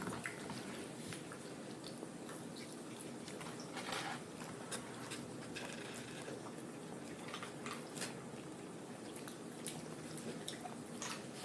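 People chewing and eating close to the microphone: scattered short wet mouth clicks and crunches over a steady low hum.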